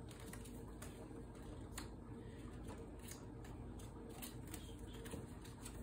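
Faint, irregular clicks and flicks of Pokémon trading cards being drawn from the deck and sorted in the hand, over a low steady room hum.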